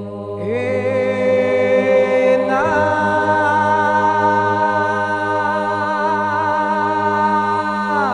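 Orthodox church chant sung a cappella: voices holding long notes over a steady low drone. A higher voice enters about half a second in and another rises in about two and a half seconds in, and both fall away at the end.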